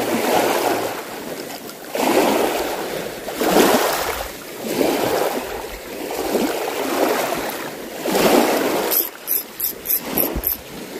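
Small sea waves washing onto the shore in repeated surges, swelling and fading every second or two. Near the end comes a quick run of about six short, sharp clicks.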